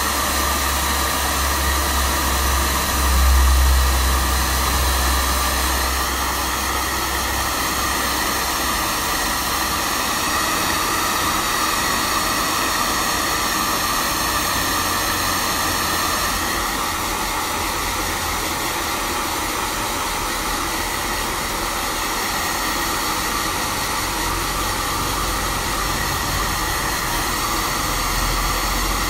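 Handheld hair dryer running steadily, blowing hot air onto a twisted lock of wet hair. A low rumble swells briefly about three seconds in.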